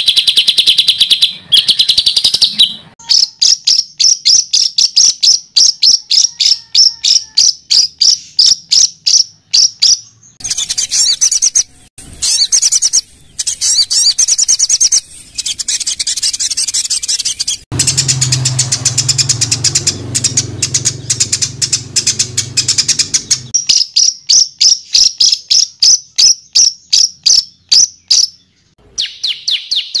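Songbird masteran (tutor song for training caged songbirds to copy): fast, dense runs of rapidly repeated high 'tembakan' notes, with brief pauses between phrases. For several seconds past the middle a low hum sits under the song.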